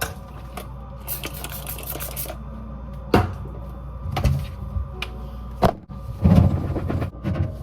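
Household handling sounds: a stretch of rustling or scrubbing, then several separate knocks and clunks of objects being handled and set down.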